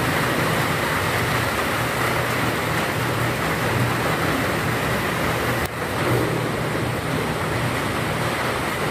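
Steady background noise with a low hum, dropping out briefly about five and a half seconds in.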